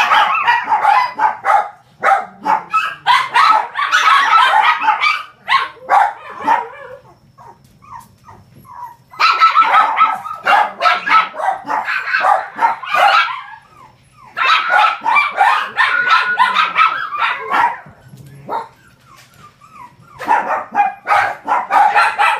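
Shih Tzu puppy feeding with its head in a stainless steel bowl: quick, dense clicking against the metal in runs of a few seconds, with short pauses between.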